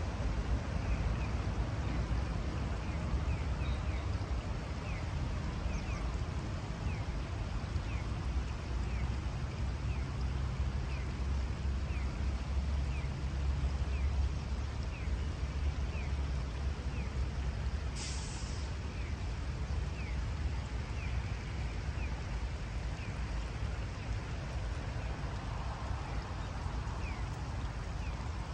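Open-air riverside ambience: a steady low rumble, with a faint high chirp repeating about once a second. A brief hiss about two-thirds of the way through.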